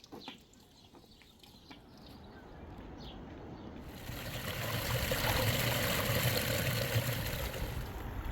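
Outdoor ambience: a few faint bird chirps, then the rush of flowing water swells in about halfway through and stays steady.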